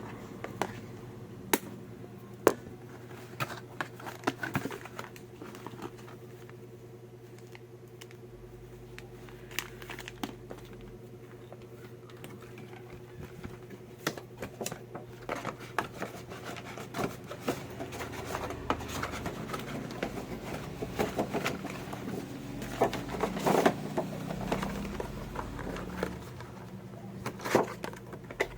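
Doll packaging and plastic being handled: scattered clicks, taps and crinkling, busier in the second half, over a steady low hum.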